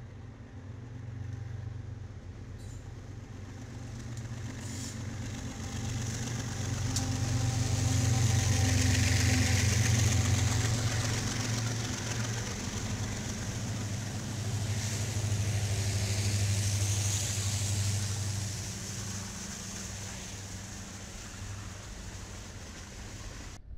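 A lashup of BNSF and Norfolk Southern diesel freight locomotives passing close by. Their engines run with a steady low drone, mixed with steel-wheel and rail noise. It swells as the units go by, about a third of the way in and again just past halfway, then fades.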